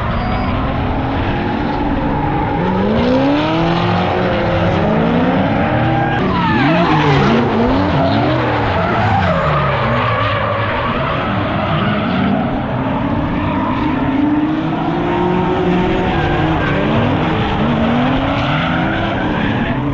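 Several drift cars sliding past together: their engines rev up and down over and over, the pitches overlapping, while the tyres skid and squeal the whole time.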